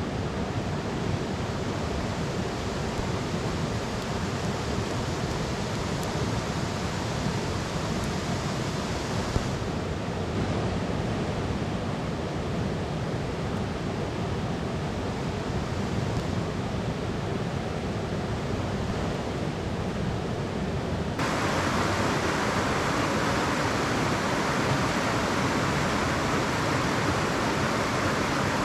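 Steady rush of a mountain stream, which jumps abruptly to a louder, brighter rush about 21 seconds in. A faint click or two stands out from it, perhaps from the campfire.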